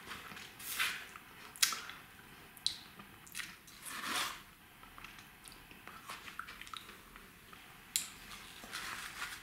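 Wet mouth sounds of sucking and licking a cola-flavoured squeeze-tube ice lolly: a string of short, separate slurps and lip smacks with quiet gaps between them.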